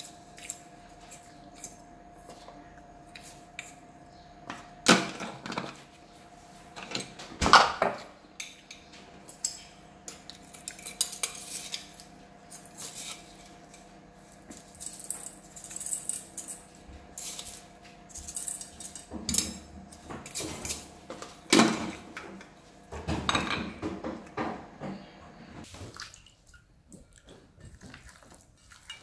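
Metal utensils clinking and scraping against dishes and pots, irregular, with a few louder knocks.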